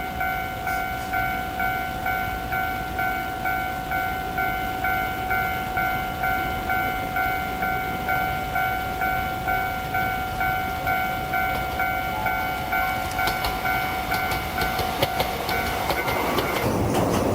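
Japanese level-crossing warning bell ringing steadily, about three rings every two seconds. Near the end the Gakunan Railway 5000 series railcar arrives and its wheel clicks and running rumble rise over the bell.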